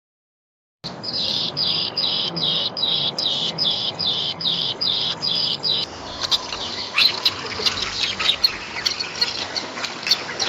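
Bird calls: after a moment of silence, a rapid, evenly spaced series of high calls, about three a second, for about five seconds, then a denser jumble of short, sharp chirps.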